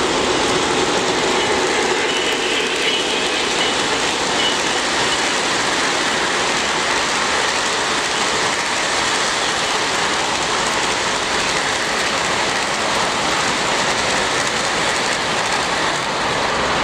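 O-gauge model freight train rolling past close by: a steady rushing clatter of metal wheels on metal track.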